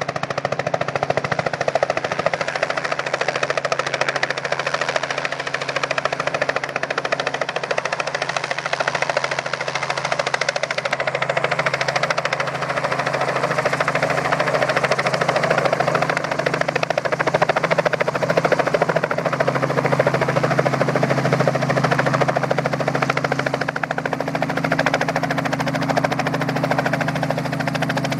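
Airsoft M134 minigun firing BBs in one long unbroken burst, a very fast rattle over a steady low motor hum.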